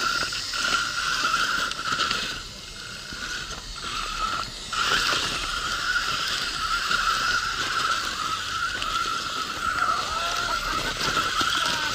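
Radio-controlled crawler's electric motor and gears whining steadily under throttle, the whine dropping out briefly about two and a half and four and a half seconds in.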